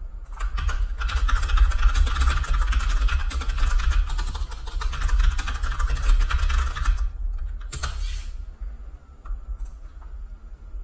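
Rapid typing on a computer keyboard for about six seconds over a low rumble, then a few separate key clicks.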